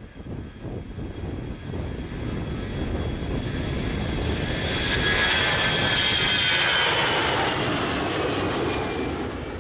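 Airbus A320 jet engines at takeoff power during the takeoff roll and liftoff. The roar builds over the first few seconds, and a high whine in it falls slightly in pitch as the airliner passes.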